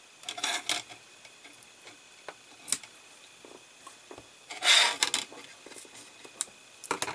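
The excess seatbelt strap on a scale-model car interior is cut. Scattered small clicks and taps of handling are heard, with one louder short rasping cut a little before the five-second mark.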